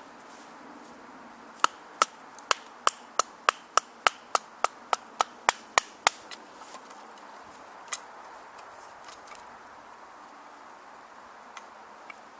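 Wooden baton knocking down on a blade set in a thin upright stick, splitting it for kindling: a quick run of about fifteen sharp knocks, roughly three a second, followed by a few lighter scattered knocks.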